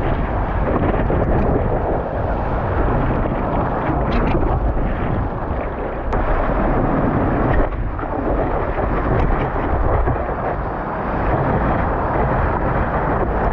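Loud, steady rush of breaking surf and wind buffeting a camera mounted on a surfboard's nose, with water splashing against the board.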